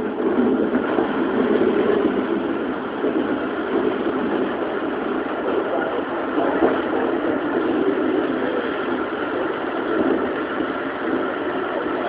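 Keikyu New 1000 series electric train running at steady speed: a continuous rumble of wheels on rail with running noise, with no rising or falling pitch.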